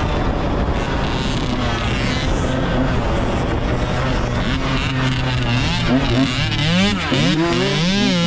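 Dirt bike engine heard from a camera mounted on the bike while riding a motocross track, over a steady rush of wind noise. About halfway through, the engine pitch starts swinging up and down quickly as the rider works the throttle through the ruts.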